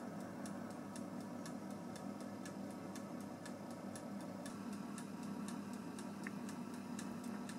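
Mechanical dial timer of a Silvercrest SGBR 1500 D4 mini oven ticking evenly, several ticks a second, while it counts down. Under it the convection fan runs with a quiet, steady hum.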